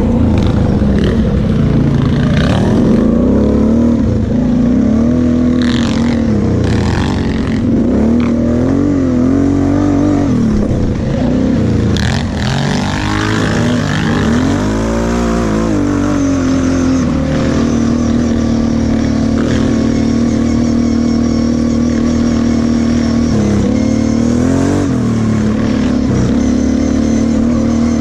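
Kawasaki KFX 700 V-Force quad's V-twin engine running under throttle, heard from the rider's seat. Its pitch rises and falls with repeated throttle changes through the first half, then holds nearly steady through the second half.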